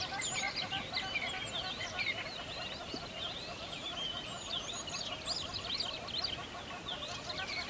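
A dense chorus of many birds singing and chirping at once, quick overlapping sweeping notes over a steady lower chattering of rapid short calls.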